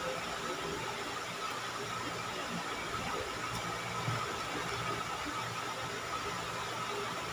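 Steady hiss of background noise with a faint, steady high-pitched hum.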